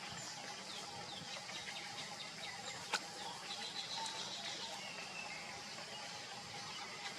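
Outdoor ambience with short high bird chirps and a few falling whistled calls over a steady faint hum, with a single sharp click about three seconds in.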